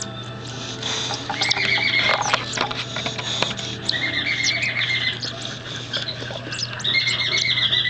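Baby cockatiel begging for food: raspy, repeated squawking calls in three stretches, with short clicks between them. A steady low hum runs underneath.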